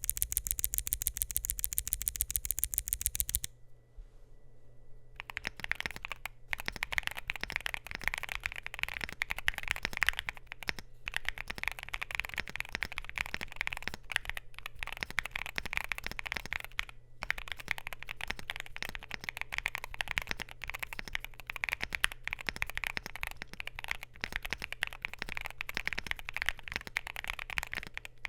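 Typing on a Luminkey65 gasket-mount mechanical keyboard with Gateron Sylva switches, a polycarbonate plate and PBT keycaps: dense, irregular key presses with a few short pauses. For the first three seconds or so there is instead a fast, very even run of clicks, then a brief lull before the typing starts.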